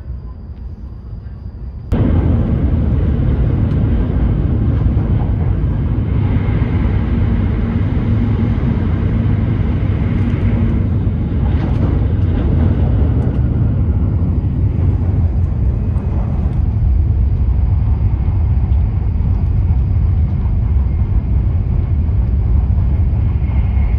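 A train's running noise, a steady loud rumble and rush, which starts abruptly about two seconds in after a quieter stretch.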